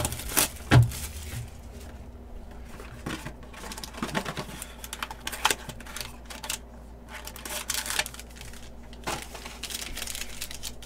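Hands opening trading-card boxes and packs: cardboard box flaps and a foil pack wrapper rustling and crinkling, with irregular light clicks and taps and a couple of louder taps in the first second.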